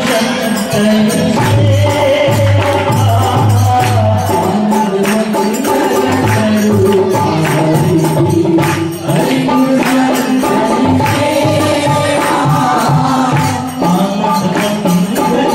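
Devotional Ganesha music: voices singing a chant over a low drone and steady percussion.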